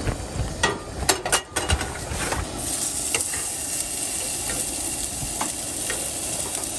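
Food frying in pans on a Coleman propane camp stove: a few knocks and clinks of the pans in the first couple of seconds, then a steady sizzle as a raw burger patty goes into a hot pan, with a couple of light clicks.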